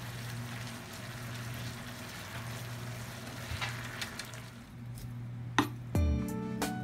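Eggplant and minced meat in chili sauce sizzling in a frying pan while being stirred with chopsticks. The sizzle fades after about four and a half seconds, there is a single click, and background music starts near the end.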